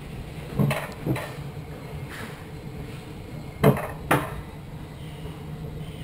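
Rail bobsled sled running down its steel rails with a steady low rumble, broken by two pairs of sharp knocks, each pair about half a second apart; the first knock of the second pair is the loudest.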